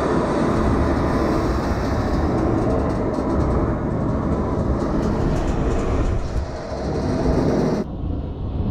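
Freight train rolling, heard from aboard a car carrying an intermodal container: a loud, steady rumble and rattle of wheels and car, with a few clacks a few seconds in. The sound turns duller near the end.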